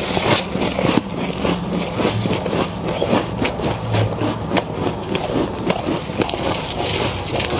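Freezer frost being chewed close to the microphone: dense, irregular crunches and crackles, over a steady low hum.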